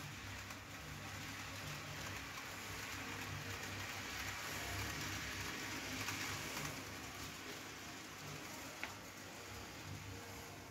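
Model-railway freight train of hopper wagons rolling along the track: a steady rushing rattle of wheels on rail that swells towards the middle, with one sharp click about nine seconds in.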